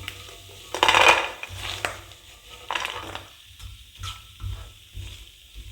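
A spoon scraping and clattering in a kadhai as ghee-roasted cashews, almonds, walnuts and pistachios are scooped out onto a plate. There are several separate scrapes, the loudest about a second in, then lighter clinks.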